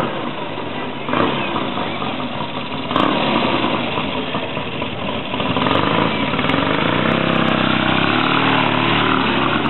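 Triton motorcycle's Triumph parallel-twin engine running as the bike rides up and passes close by, getting louder over the last few seconds.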